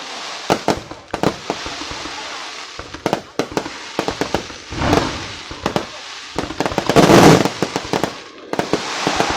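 Aerial fireworks going off: a rapid run of sharp bangs and crackling, with a long, loud crackling burst about seven seconds in.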